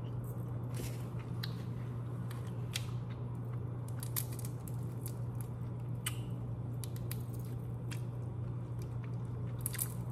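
Head-on shrimp being peeled and eaten close to the microphone: scattered sharp crackles and clicks of shell with wet squishing, over a steady low hum.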